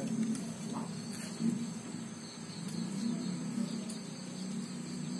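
Rural background sound: a steady high insect trill over a low, wavering hum.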